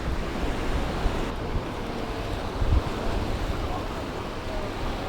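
Sea waves washing onto the shore, with wind buffeting the microphone in uneven low gusts.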